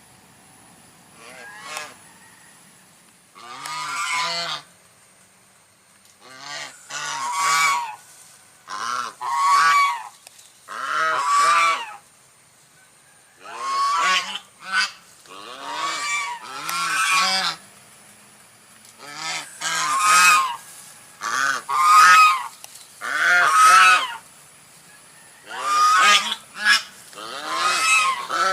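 White domestic goose honking repeatedly: loud, brassy calls about half a second to a second long, often in quick pairs or threes, with short pauses between runs.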